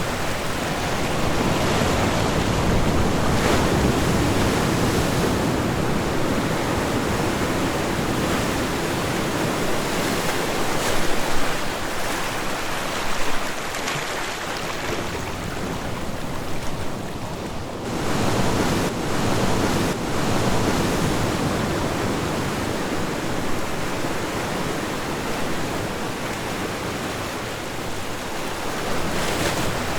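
Ocean surf washing onto a shore: a continuous rush of breaking waves that swells and eases. It dips briefly a little past halfway before the next wave surges in.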